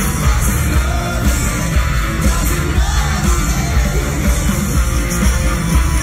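Live rock band playing loud through a concert PA, heard from the crowd: electric guitar, bass and drums with a male lead vocal.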